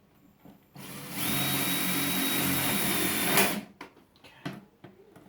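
Power drill running steadily for a little under three seconds, driving a self-drilling screw, starting about a second in and stopping suddenly.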